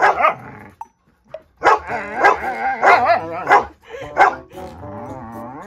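A dog barking and grumbling in short bursts, with wavering whining yowls between the barks and a brief pause about a second in: a dog voicing its displeasure.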